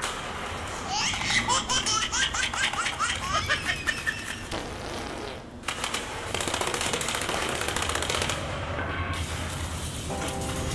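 A burst of high-pitched laughter in quick repeated pulses, followed by a few seconds of rapid clattering.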